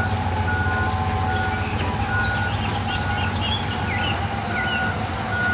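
Komatsu HD405 mining haul truck's diesel engine running with a steady low hum, while its back-up alarm beeps at an even pace, about five beeps every four seconds.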